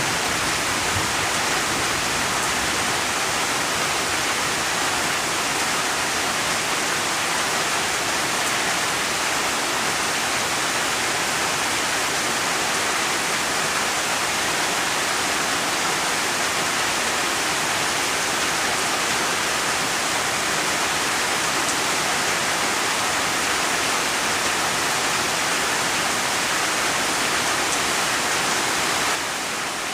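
Steady rain, an even, dense hiss with no pauses or single drops standing out; it dips slightly in level just before the end.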